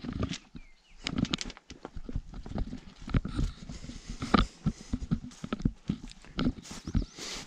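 Footsteps walking over grass and gravel: irregular scuffs and knocks.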